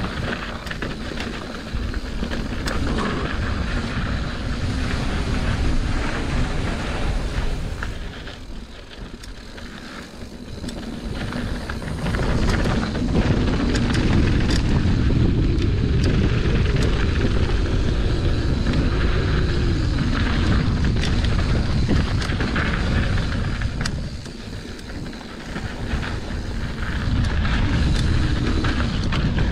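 Mountain bike riding a dirt flow trail: a steady rush of wind on the microphone and tyre noise, with clicks and rattles from the bike over bumps. The rush eases twice, about a third of the way in and again near the end, and is louder in between.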